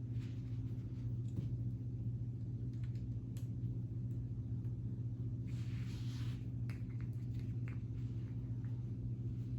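Faint clicks and a brief rustle of plastic K'nex pieces being handled as wheels are pulled off a model, over a steady low hum.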